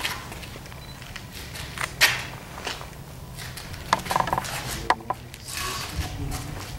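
Handling noise as a three-bladed carbon-fibre propeller is fitted to the aircraft engine's hub: scattered knocks and taps, one sharp one about two seconds in and a cluster around four to five seconds in, over a steady low hum.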